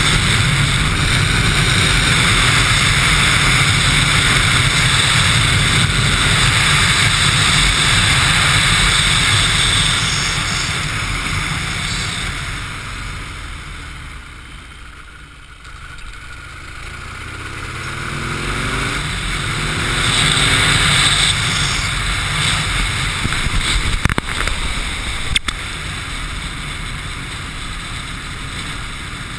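Chopper motorcycle under way, its engine mixed with heavy wind rush on the microphone. The sound fades as the bike slows almost to a stop about halfway through, then rises again as it pulls away, the engine pitch climbing.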